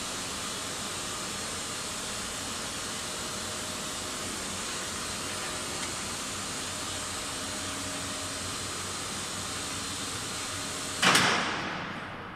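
Service lift in a Vestas V80 wind turbine tower travelling down with a steady hiss and faint hum, then a sudden loud clunk near the end as it comes to a stop, the clang ringing out in the hollow steel tower while the running noise dies away.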